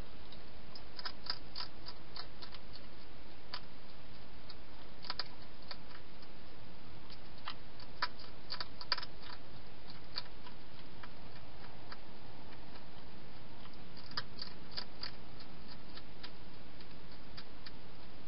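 Wild hedgehog feeding at a bowl, its mouthing making irregular clusters of small sharp clicks over a steady hiss.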